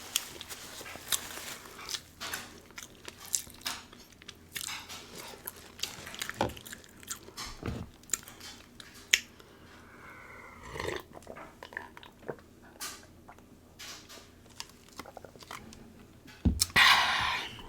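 Close-miked eating of a king crab seafood boil: chewing, biting and wet mouth clicks with scattered cracks. A louder noisy rush lasts about a second near the end.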